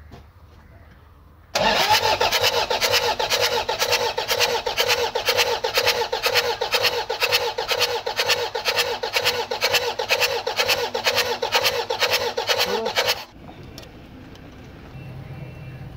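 Toyota 2KD four-cylinder common-rail diesel turned over on its starter motor with an injector out, an even, rapid pulsing rhythm. It starts about a second and a half in and cuts off suddenly near the end.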